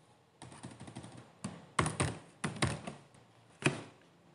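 Scattered sharp clicks of computer keys and mouse buttons, about eight in all, the loudest a little before the end.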